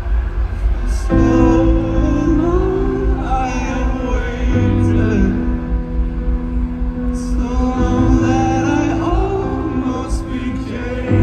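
Live band music over a festival PA, recorded by a phone in the crowd: sustained keyboard chords that change about every three seconds, with a man singing a slow melody over them. A constant low rumble sits underneath.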